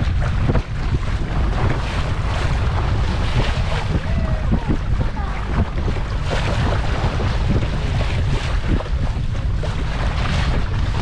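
Wind buffeting the microphone on a boat under way, over water rushing past the hull: a steady, fluctuating low rumble.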